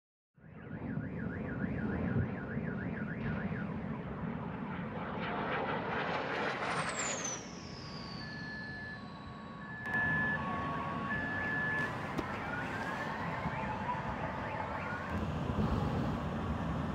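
Car alarms sounding over a low rumble: first a fast warbling wail, then alternating two-tone beeps and rising whoops. About six seconds in, a high whistle falls steadily in pitch for a few seconds, and about ten seconds in the sound suddenly gets louder.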